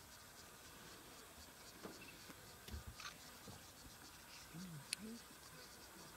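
Near silence: faint bush ambience with insects buzzing softly, a few soft clicks, and a brief low murmur of a voice about five seconds in.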